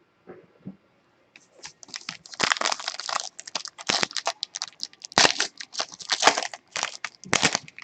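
Plastic wrapping of a football trading card pack crinkling and tearing as the pack is opened, in a run of irregular bursts that starts about a second and a half in.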